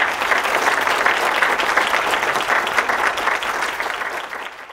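Audience applauding, many hands clapping steadily; it cuts off suddenly at the end.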